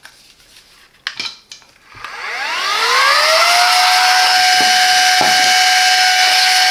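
Silvercrest SHM A1 cordless handheld vacuum cleaner switched on about two seconds in: its motor spins up with a rising whine, then runs at a loud, steady high whine. A few clicks come just before it starts.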